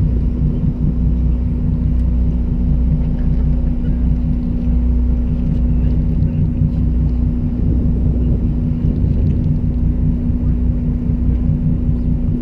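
Fishing boat's engine running steadily: an even, low drone with a constant hum over it that does not change.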